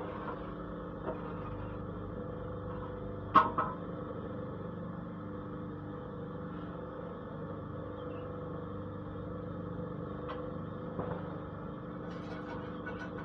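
Paving block press machine running with a steady motor hum, a sharp knock about three and a half seconds in and a few lighter knocks later.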